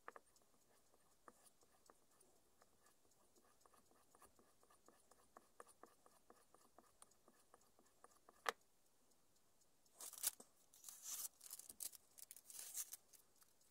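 Mostly near silence, broken by a single sharp click about eight seconds in. Near the end, newspaper crinkles and rustles in uneven bursts as it is wrapped around a kitchen cleaver's blade.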